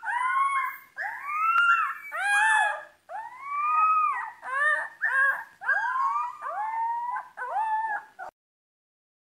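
A young gene-edited wolf pup, one of Colossal Biosciences' 'dire wolves', howls in a string of short, high calls that each rise and fall in pitch, stopping a little after eight seconds in.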